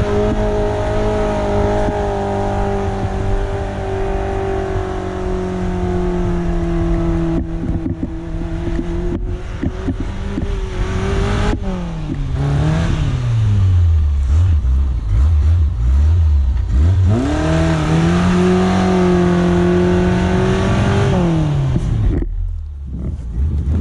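Suzuki SJ410's small four-cylinder engine pulling at high, steady revs, then dropping sharply to low revs about halfway through, revving back up and holding, and dropping off again near the end.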